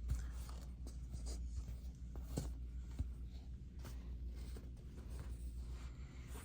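Soft scratchy rubbing and rustling with a few light clicks, over a steady low hum.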